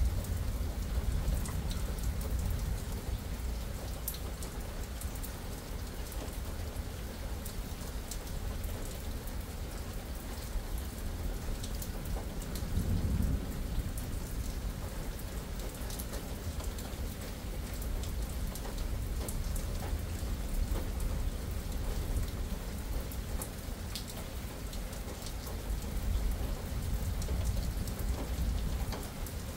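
Steady rain falling on pavement and foliage, with drops ticking close by, over a low rumble of thunder that swells about halfway through.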